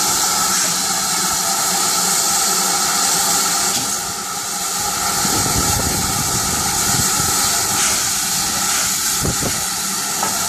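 GWR 5101 class 'Large Prairie' 2-6-2 tank steam locomotive letting off steam with a steady loud hiss; a low rumble joins about halfway through.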